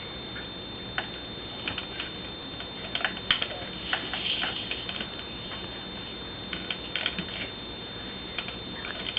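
Irregular light clicks and taps, a few each second in places, over a faint steady hiss.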